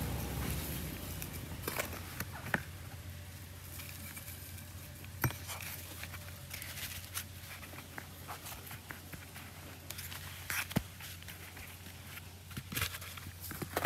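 Hands pressing and firming loose potting soil around a cutting in a plastic nursery pot. It makes a soft gritty crunching, with a handful of sharp clicks and taps scattered through it.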